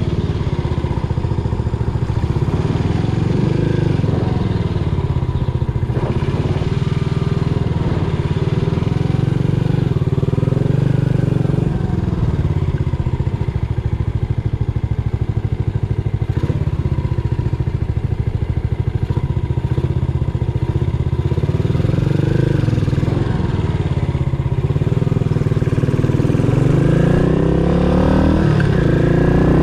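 Yamaha SR400's air-cooled single-cylinder four-stroke engine running under way on a ride, its pitch rising and falling with the throttle and climbing as it accelerates near the end.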